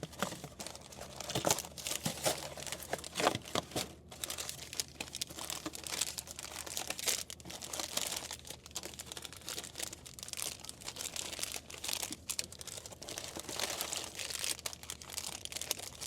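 Plastic snack packets of Planters peanuts crinkling and rustling as they are handled, a steady run of irregular crackles, busiest in the first few seconds.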